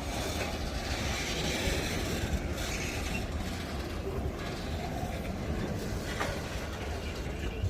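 Freight train wagons rolling past on the rails: a steady rumble and rattle of steel wheels, with a few sharp clicks.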